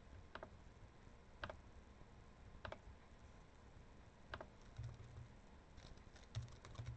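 Faint clicks of computer keys being pressed. There are a few single presses about a second or more apart, then a quicker run of small clicks near the end, mixed with a few low thumps.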